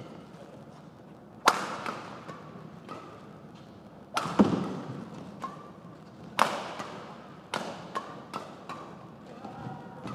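Badminton doubles rally: rackets striking the shuttlecock in an irregular series of sharp cracks, about a dozen, each with a short echo of the hall.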